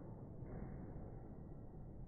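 Faint low rumble with no distinct events: slowed-down indoor range noise in the pause between AR-15 pistol shots.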